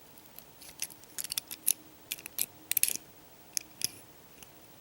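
Small metal parts of a Euro cylinder lock clicking and clinking as it is taken apart by hand: a dozen or so sharp little clicks, some in quick pairs.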